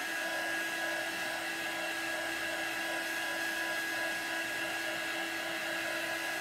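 Handheld craft heat tool running steadily, blowing hot air to dry wet chalk paste: a steady motor whine over a rush of air.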